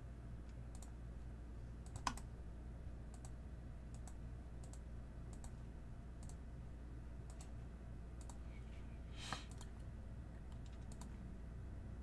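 Scattered light clicks of a computer keyboard and mouse, with a sharper click about two seconds in and a brief cluster of clicks about nine seconds in, over a low steady hum.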